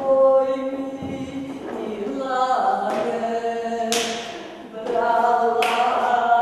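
Several voices singing held notes together without instruments, like a small choir chanting, with a few sharp percussive hits cutting in at intervals.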